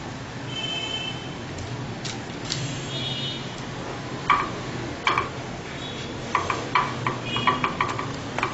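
Hands pushing grilled chicken pieces off wooden skewers into a glass baking dish: scattered light taps and clinks against the glass, with a few brief high pings, more frequent near the end.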